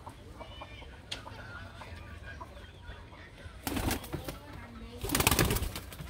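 Domestic pigeon's wings flapping in two loud bursts, a short one a little under four seconds in and a longer one about five seconds in, over faint bird calls.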